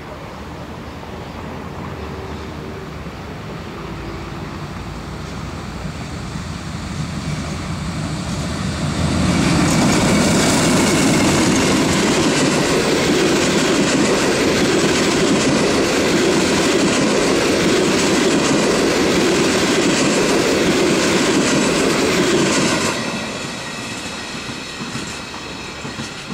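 Diesel-hauled passenger train approaching slowly louder, then passing close by for about fourteen seconds with its wheels running over the rails, and dropping away suddenly as the last coach goes by and it moves off.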